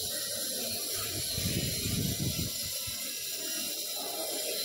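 Steady background hiss of room tone, with a brief low rumble about one and a half seconds in.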